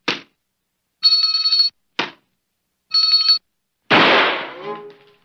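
Small hand bell rung in two short bursts of rapid ringing, about two seconds apart, each just after a quick swish, as a cartoon sound effect. About four seconds in comes a loud noisy crash that fades over about a second.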